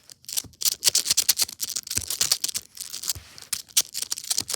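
Unpainted plastic snake fidget toy being flexed, its segments clicking and rattling in a rapid, irregular run of sharp clicks, the sound that is kind of satisfying.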